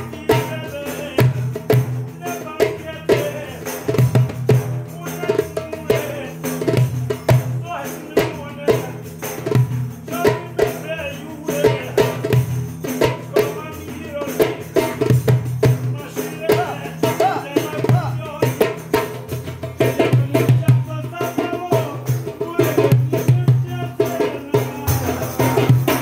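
Men singing together to the steady beat of a def, a large hand-played frame drum.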